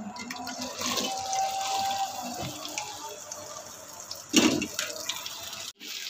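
Wet, cut okra hitting hot ghee in a wok and sizzling with a steady rushing hiss. A brief louder thump about four seconds in.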